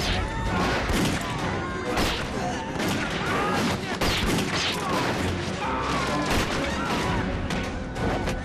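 Dense, continuous volleys of gunfire from a staged film battle, with shouts and cries over the shots.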